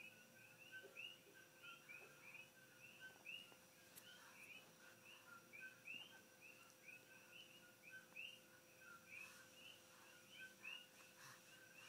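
Faint chorus of coqui frogs: many overlapping two-note 'ko-kee' calls, a lower note followed by a rising higher one, repeating several times a second, over a faint steady hum.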